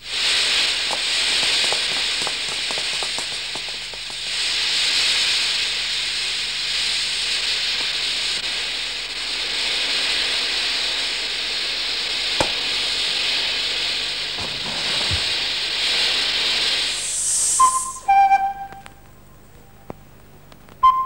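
Lit gunpowder charge fizzing with a steady hiss for about seventeen seconds, then stopping with no explosion: a dud, which the onlookers put down to impure sulfur. A few short flute notes follow near the end.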